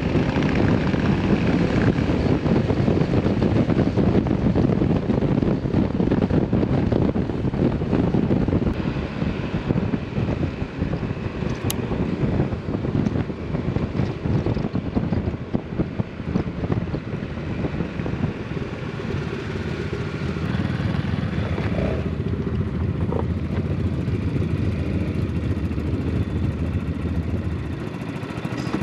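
Motorcycle engine running while riding, with wind rushing over the microphone. It is a little quieter and steadier in the last several seconds.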